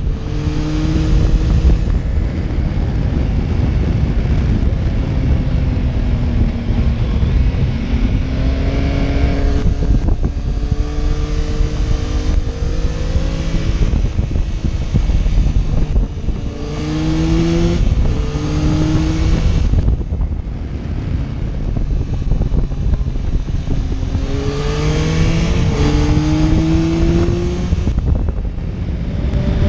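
Motorcycle engine heard onboard, accelerating several times with its pitch rising in steps through the gears, then easing off between pulls. Heavy wind buffeting on the microphone runs underneath.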